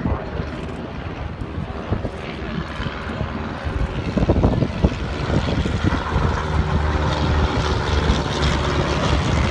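Propeller engine of a vintage biplane droning as it flies past, growing louder from about halfway.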